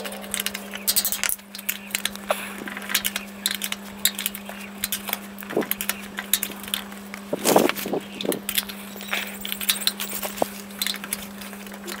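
A hand wrench working rusty steel bolts loose: irregular metallic clicks and clinks, with a few louder knocks about seven and a half seconds in.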